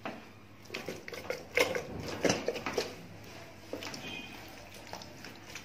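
Gloved hands rubbing and handling a raw duck carcass coated in a wet paste of flour, salt and lemon, making wet squishing and rubbing sounds. A few sharp knocks and clicks come in the middle, about a second and a half to three seconds in.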